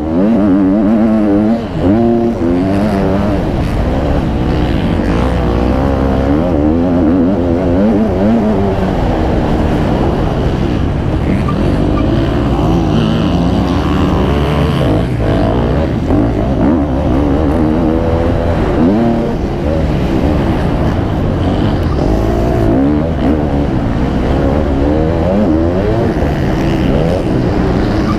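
Several MX2 motocross bikes racing, their engines revving up and down in pitch as they accelerate and shift, many overlapping at once.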